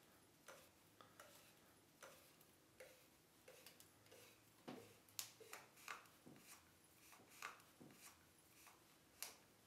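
Alessi Alessandro M corkscrew being twisted by hand to back the cork out of its body: a string of faint, irregular clicks and ticks from the turning mechanism, a few sharper ones in the middle and near the end.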